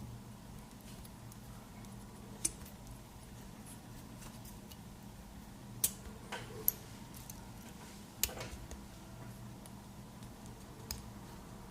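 Small parts of a cable adapter being handled: a handful of sharp little clicks and light metallic taps, spaced out over several seconds, over a low steady hum.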